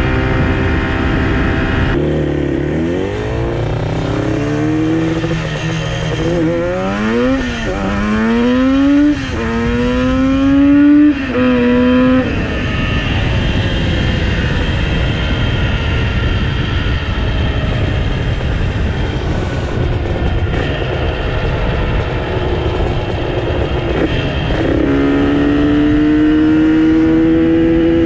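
Yamaha RD350 two-stroke parallel twin accelerating hard through several gears: the engine note climbs and drops back at each shift, over a steady rushing noise. It then holds steady for a while, and near the end pulls again with a long, slow rise in pitch.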